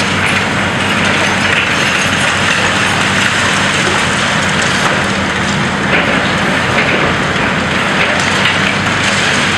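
High-reach demolition excavator's diesel engine running steadily under a loud, continuous hiss of dust-suppression water spray, with scattered small cracks as concrete is broken and falls.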